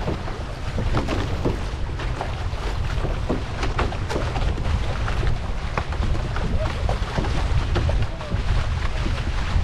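Wind buffeting the microphone over water rushing and splashing against the hull of an outrigger canoe being paddled through open sea, with many short splashes throughout.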